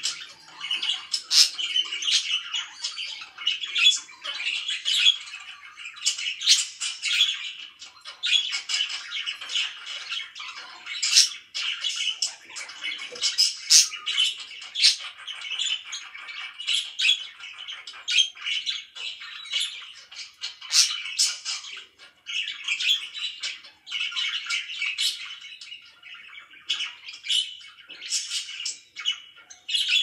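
A small flock of pet budgerigars chattering and chirping nonstop, with many sharp, high calls over the continuous warble.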